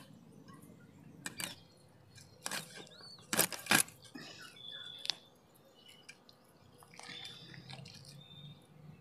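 Snakehead fish being cut on a boti, a curved blade fixed upright on a wooden base: a few sharp clicks and knocks, the two loudest close together about three and a half seconds in. Birds chirp now and then in the background.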